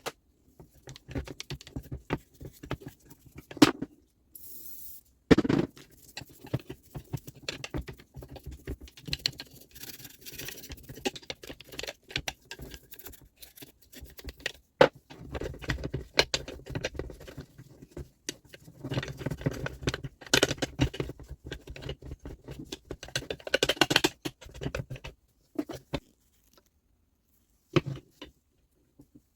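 Irregular clicks, taps and scraping of small tool parts being handled and worked by hand, busiest in two stretches in the middle and near the end.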